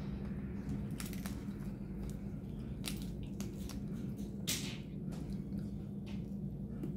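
Snow crab legs being snapped and pulled apart by hand: scattered cracks of shell and wet squishes, the loudest about four and a half seconds in, over a steady low hum.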